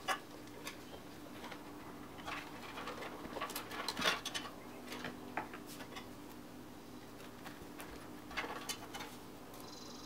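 Computer cables being handled and pushed into place behind a PC case: scattered light clicks and rustles of wire and plastic, the strongest about four seconds in, over a faint steady hum.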